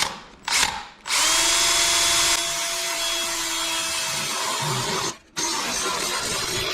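Power drill turning a step bit and cutting a wire hole through the back of a sheet-metal ashtray. Two short trigger blips come first, then a long steady run from about a second in. It stops briefly a little after five seconds and starts again.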